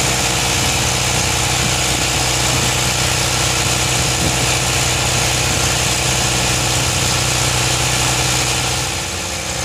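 Fishing boat's engine running steadily as the boat motors along a river, its level dipping slightly near the end.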